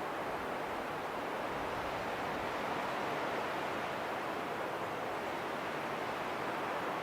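Steady rushing wind, an even hiss with no gusts or breaks, swelling a little about three seconds in.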